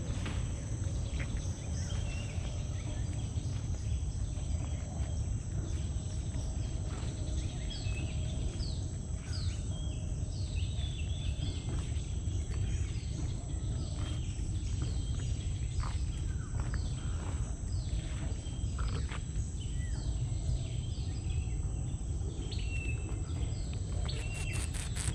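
Mangrove wetland ambience: birds giving many short, quick falling chirps over a steady high insect drone and a constant low rumble.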